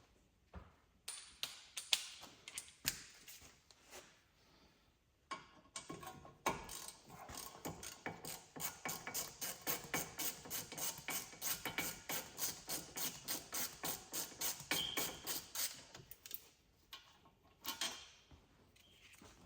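Harbor Freight Icon G2 ratchet clicking as its handle is swung back and forth on a bolt. There are a few scattered clicks and knocks at first. From about five seconds in it gives a long, even run of rapid clicks that stops about four seconds before the end.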